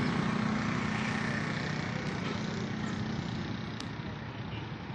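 Steady engine rumble, slowly growing fainter.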